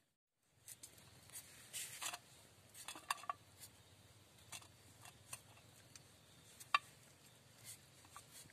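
Small knife cutting a potato held in the hand, a scatter of short scrapes and clicks, with one sharp click louder than the rest late on.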